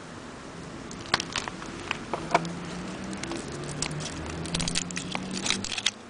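Crinkling and crackling of a solid-fuel cube's wrapper as it is torn open by hand and the Esbit fuel cube taken out: irregular sharp crackles, thickest near the end.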